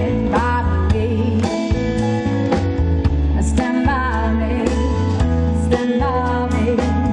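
Live pop band playing, with a woman singing over electric guitar, bass and a steady drum beat.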